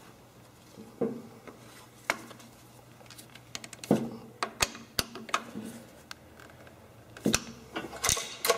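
Screwdriver clicking and scraping on the metal parts of a Tecumseh snow blower engine's carburetor as screws are tightened: scattered light clicks and taps, a dozen or so, at uneven intervals.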